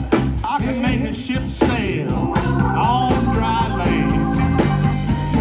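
Live blues band playing, with electric guitar, drum kit and a man singing.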